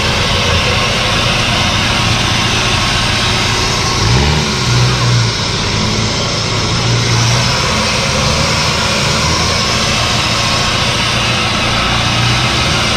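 Off-road 4x4's engine idling steadily, revving up briefly about four seconds in.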